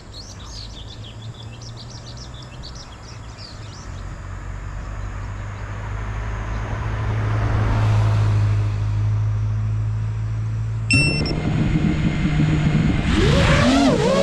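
Birds chirp faintly at first while a van drives past, its engine and tyre noise swelling to a peak about eight seconds in. About eleven seconds in, the GEPRC Mark 5 FPV quadcopter's motors spin up to a steady hum, then rise into a loud, wavering whine near the end as it throttles up to take off.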